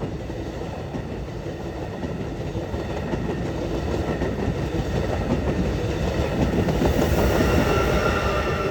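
Amtrak NextGen Acela (Alstom Avelia Liberty) electric high-speed trainset passing through the station at speed, a steady rush and rumble of wheels on rail that grows louder toward the end. Faint high tones come in over the last couple of seconds.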